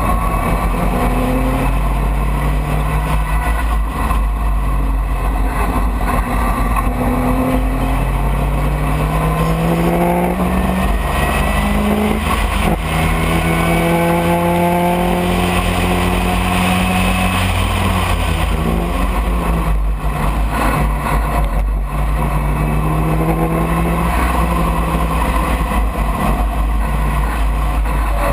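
Racing car's engine heard from the open cockpit, accelerating hard through the gears: its pitch climbs and then drops at each upshift, and falls away as it slows for corners. A steady low buffeting of wind on the microphone runs underneath.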